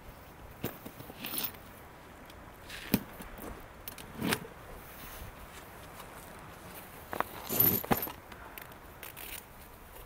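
Scattered handling noises close to the microphone: a few sharp clicks and knocks with bits of rustling and scraping, the busiest cluster coming about three quarters of the way through.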